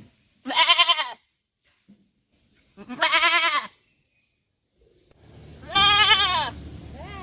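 A goat bleating three times, each bleat a wavering, quavering call under a second long, spaced a few seconds apart. A steady low background noise comes in before the third bleat.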